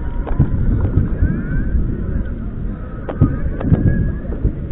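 Distant fireworks going off: scattered sharp pops and bangs, several in quick succession about three seconds in, over a steady low rumble.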